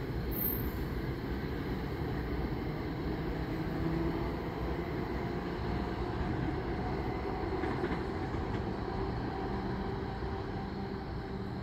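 NJ Transit commuter train of Comet V coaches pulling away, a steady rail rumble with a faint hum that grows slightly fainter toward the end as the train recedes.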